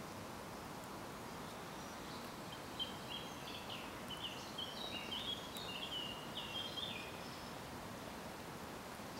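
Steady faint background hiss, with a small bird singing a run of short, quick notes from about two and a half seconds in until about seven seconds in.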